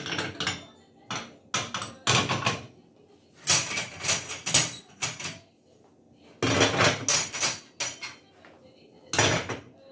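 Metal pan supports and burner parts of a gas hob being lifted off and set down on a stone counter. They knock and clatter in short irregular bursts, the longest a few seconds in and again near the end.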